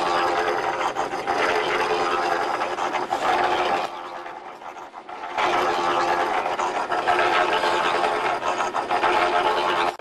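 Powered mortar mixer running, with a lull of about a second and a half near the middle before it picks up again.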